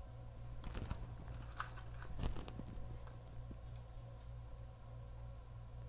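Light clicks and crackles of a thin clear plastic snack tray being held and turned in the hands, mostly in the first half, over a steady low hum.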